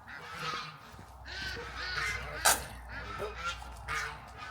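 Farm animals calling repeatedly in short, pitched calls, with a sharp click about two and a half seconds in.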